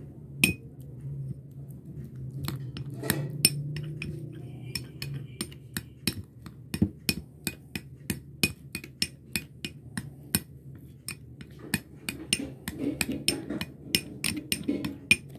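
Steel spoon clinking against a cut-glass bowl while stirring a thick flour-and-water paste, the clinks sparse at first and then coming quicker, about two or three a second, through the second half. A low steady hum runs underneath.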